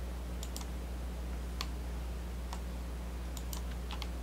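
Scattered clicks of a computer mouse and keyboard, about eight in four seconds, some in quick pairs, as commands are entered in CAD drawing software. A steady low electrical hum runs underneath.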